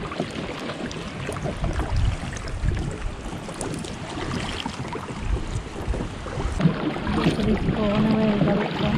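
Kayak paddling on the sea: paddle blades splashing and water sloshing against the hull, with wind buffeting the microphone.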